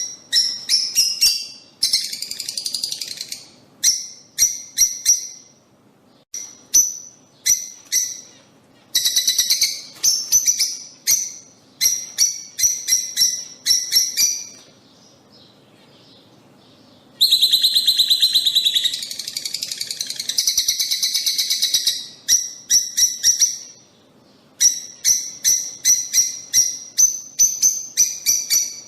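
Lovebirds calling: sharp, high chirps in quick runs, with stretches of rapid chattering, the longest starting a little past the middle after a pause of about two seconds.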